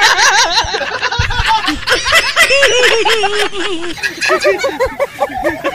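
High-pitched giggling and laughter from several voices, a laughing sound effect laid over the picture, starting and stopping abruptly.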